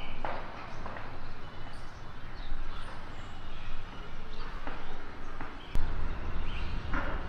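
Outdoor park background noise with scattered short bird chirps. A sharp click comes just before six seconds in, after which a low hum joins the background.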